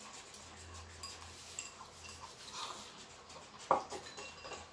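Chopsticks clicking and scraping against small ceramic rice bowls while noodles are eaten, with short high pings from the bowls and one louder knock about three and a half seconds in.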